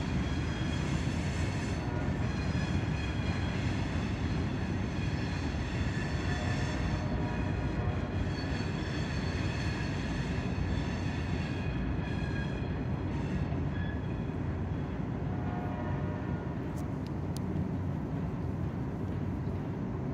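Long, heavy loaded stone freight train rolling past with a steady rumble of wagons. High-pitched wheel squeal and grinding from the wagon wheels comes and goes on top of it throughout.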